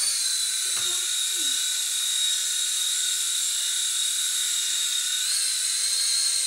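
Small Minion-shaped toy drone's electric rotor motor whining steadily and high-pitched as it hovers. The toy senses objects beneath it and climbs away from them. Its pitch rises briefly near the start and again about five seconds in.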